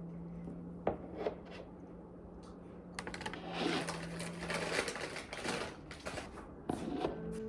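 Light clicks and taps of small objects being handled, then a stretch of dense rustling and clicking, over a steady low hum that stops partway through.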